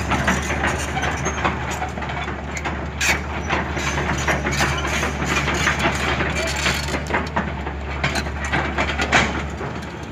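L&T Komatsu crawler excavator's diesel engine running steadily while its steel tracks clank and creak as it drives over the dirt, with frequent sharp knocks. The engine's low hum drops away near the end.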